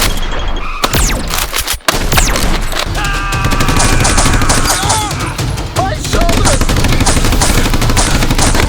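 Rapid overlapping gunfire sound effects, a continuous fusillade of shots, over background music.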